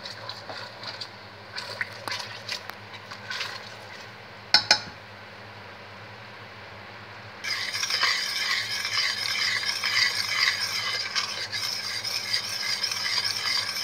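Honey being stirred in a stainless steel pot, with light clicks of the utensil against the pot and a sharp double tap about four and a half seconds in. From about seven seconds in, a louder continuous rhythmic scraping of the utensil stirring around the pot as the honey comes to the boil.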